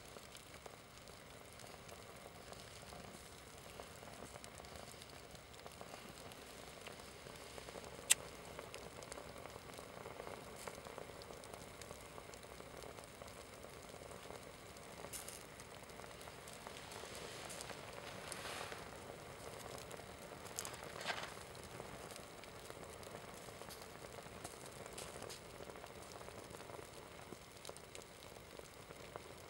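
Small flames burning and melting a synthetic (nylon/polyester) Adidas sports shirt: a faint, steady crackle and sizzle, with a sharp pop about eight seconds in and a few louder crackles later on.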